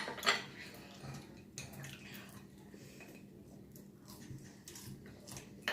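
A few sharp clicks and clinks of eating utensils against a plate or dish, spaced out over quiet eating, with a faint steady hum underneath.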